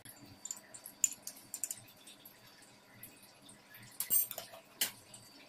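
Faint scattered light clicks and ticks of kitchen handling around a cooking pot, with two sharper clinks about four and five seconds in.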